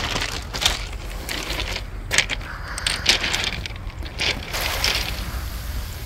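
Small waves washing over a shore of smooth round pebbles (mongdol), the stones rattling and clicking against each other as the water runs up and draws back. There are several rattles about a second apart over a steady low rumble.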